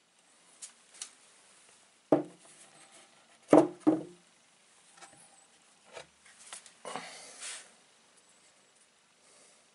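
Heavy stones knocking on a wooden tabletop as they are picked up and set down: a sharp knock about two seconds in, two more in quick succession a second and a half later, then lighter knocks and a short stretch of stone rubbing and shuffling as they are handled.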